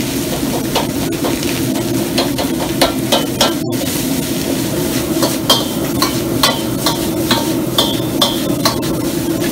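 Metal ladle and wok spatula scraping and clinking against a steel wok as fried rice is stir-fried and tossed, over the steady roar of the gas wok burner. The sharp clinks come about twice a second from about two seconds in, some of them ringing.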